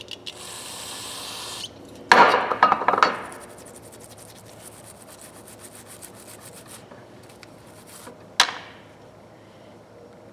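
Rubbing and scrubbing on the parts of a ratchet being cleaned of old grease. A short hiss comes first, then a loud burst of scrubbing about two seconds in, then faint rapid ticking and one brief sharp scrape near the end.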